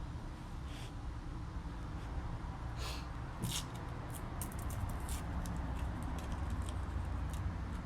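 Light clicks and ticks over a steady low rumble as a motorcycle wheel is spun and handled on a static balancing stand. The clicks come in a run in the middle.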